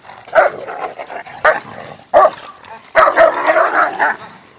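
A large dog barking hard during guard and attack training: single barks about a second apart, then a quick run of barks near the end.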